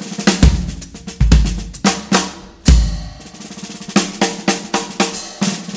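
Background music led by a drum kit, with kick drum, snare and cymbal hits.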